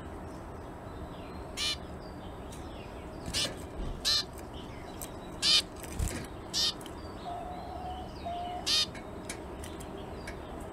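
Zebra finches calling: about eight short single calls at irregular intervals of a second or two.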